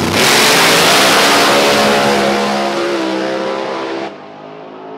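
Drag race cars accelerating hard down the strip at full throttle, a loud engine noise that drops sharply and turns duller about four seconds in.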